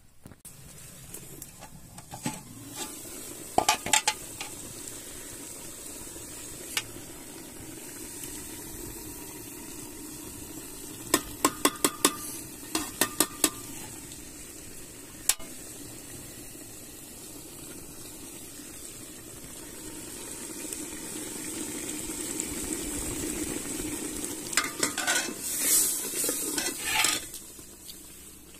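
Beef stew simmering in an aluminium pot over a wood fire, a steady bubbling hiss, with a metal ladle clinking against the pot and its lid: a few clinks early, a quick run of sharp clinks about eleven to thirteen seconds in, and a louder clatter of the lid near the end.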